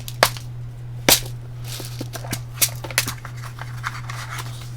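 Several sharp small clicks and taps, the loudest about a second in, from small electronic components and their packaging being handled and sorted, over a steady low hum.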